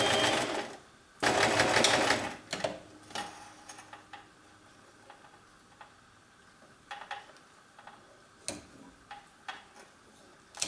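Electric domestic sewing machine sewing a small zigzag stitch: it stops under a second in, then runs again for about a second. After that come scattered light clicks and taps as the fabric is lifted out and the thread drawn off.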